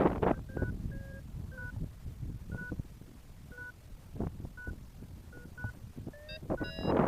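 Paragliding variometer beeping: short, high electronic beeps at irregular intervals, then near the end a quick run of beeps stepping up in pitch, the vario's signal of a strengthening climb. Wind buffets the microphone underneath.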